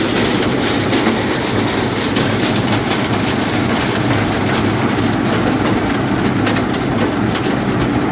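One-metre road planer milling asphalt. Its diesel engine runs steadily under load while the rotating cutter drum cuts through the road surface with a dense, continuous stream of sharp clicks.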